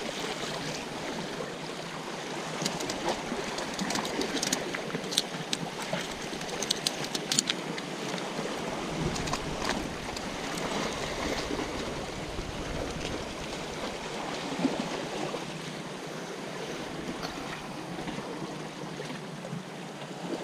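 Sea waves washing and splashing among the boulders of a rock breakwater, a steady rushing wash. A run of sharp clicks and taps about 4 to 8 seconds in.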